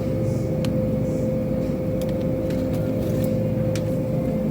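Steady machine hum with one held mid-pitched tone, with a few faint light clicks now and then.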